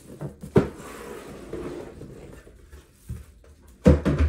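A cardboard shoebox being opened and handled, with wrapping paper inside: a sharp knock about half a second in, a stretch of paper rustling, then two loud thumps near the end.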